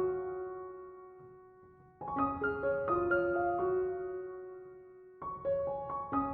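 Background piano music: gentle phrases of single notes that strike and ring down, one note held and fading, then a new phrase about two seconds in and another near the end.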